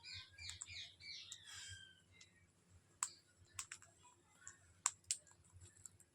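Indian ringneck parakeets giving a quick run of short, high chirps for about two seconds, followed by a few sharp separate clicks.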